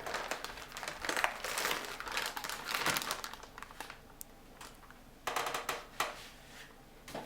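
Anti-static plastic bag crinkling as it is handled and opened to take out a graphics card, dense for the first three seconds, then a few shorter rustles about five to six seconds in.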